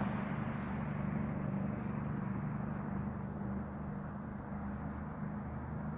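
A car running at a steady pace, its engine hum and road noise even throughout.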